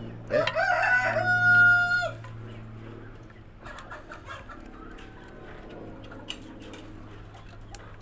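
A rooster crows once near the start, a call of about two seconds that rises at first, holds a steady pitch and cuts off. Afterwards there are only light clicks and taps of plastic pump parts being worked with a screwdriver, over a steady low hum.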